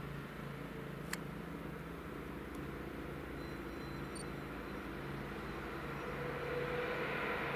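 A train approaching: a low, steady hum and rumble that grows louder over the last couple of seconds.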